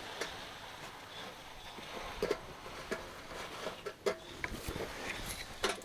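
Scattered light clicks and knocks, about half a dozen spread out, of hands working on a small petrol fire pump.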